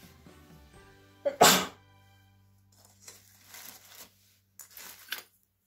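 A single loud sneeze about a second and a half in, over soft background music that fades out soon after. Then come a few short rustles as hands sort through a box of Christmas ornaments and tinsel.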